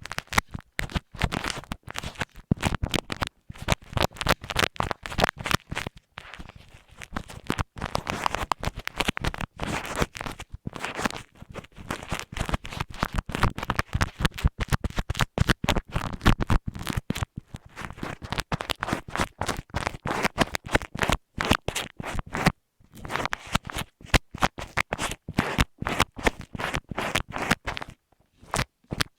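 Close-up scratching and scraping on an earphone microphone, in rapid, uneven strokes broken by a few brief pauses.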